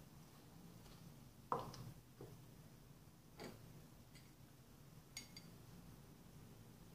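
A few faint taps and clinks of handling in a quiet kitchen: a plastic funnel is set into the neck of a glass beer bottle, with the sharpest knock about a second and a half in. A second knock follows, then two small high clinks near the middle.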